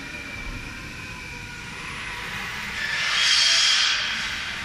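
Steady mechanical hiss of machinery, with a louder, higher hiss that swells up and fades away over about a second past the middle.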